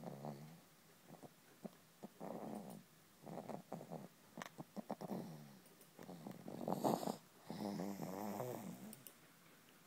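Snoring: a run of short, pitched, wavering snores, one breath after another, loudest about seven seconds in, stopping just before the end.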